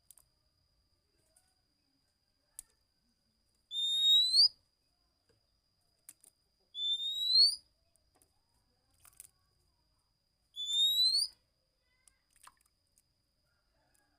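Oriental magpie-robin giving three separate rising whistled calls, each lasting under a second, about three seconds apart, with faint clicks between them.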